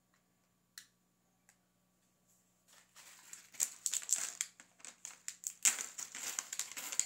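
Thin plastic sheet crinkling as it is handled and crumpled, starting about three seconds in after two light clicks.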